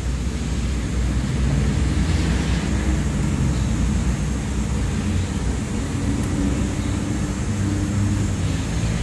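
Steady low rumble of vehicle engine noise, with faint hums that waver a little in pitch.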